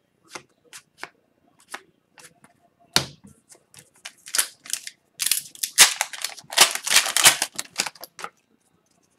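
Hockey cards handled with a few light clicks as they are flicked through. A sharp snap comes about three seconds in, then a foil Upper Deck card pack is torn open and crinkled for several seconds.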